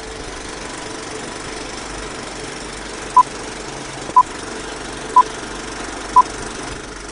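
Vintage film projector sound effect: a steady mechanical whirring rattle, with a short high beep once a second from about three seconds in, four beeps in all, counting down a film leader.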